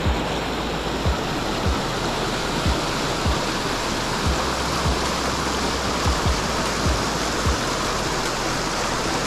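Steady rush of water pouring out of a drainage pipe outlet into a river, with soft low thumps in a regular beat underneath.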